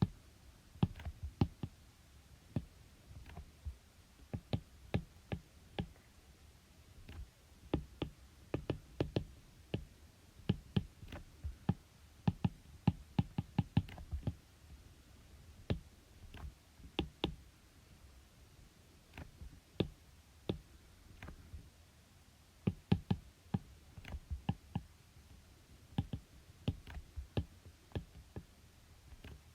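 Irregular sharp clicks and taps of a pen on a writing surface as working is written out, coming in clusters with short pauses between them.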